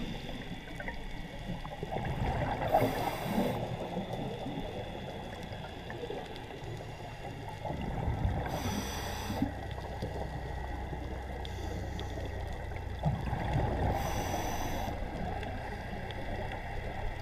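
Underwater ambience picked up by a diving camera: a low, steady rumble of moving water, broken three times, about six seconds apart, by a brief hissing rush of bubbles, like a scuba diver's regulator breathing.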